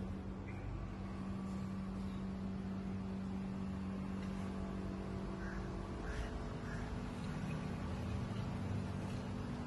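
Steady low mechanical hum holding one constant tone over a low rumble, with a few faint short high chirps about halfway through.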